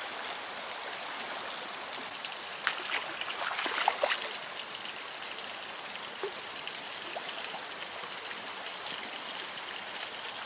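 Shallow creek water flowing steadily over stones, with a few brief splashes about three to four seconds in.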